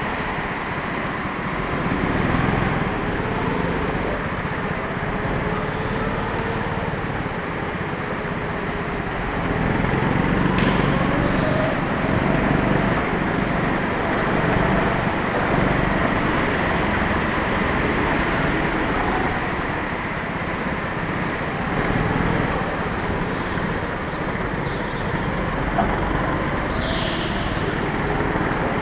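Go-kart engine running under throttle, heard from the kart itself, its pitch rising and falling as the kart speeds up and slows through the corners, with a few brief high squeaks.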